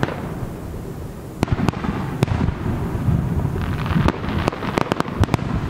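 Aerial firework shells bursting in a rapid barrage: many sharp cracks over a continuous low rumble of booms, with a short lull about a second in.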